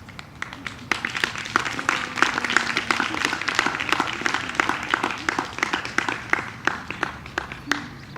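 Audience applauding, starting with a few scattered claps and filling out about a second in, then thinning toward the end.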